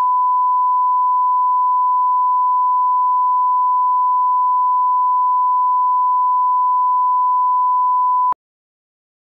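Broadcast line-up reference tone played over colour bars: one steady, unwavering pure tone that cuts off suddenly about eight seconds in.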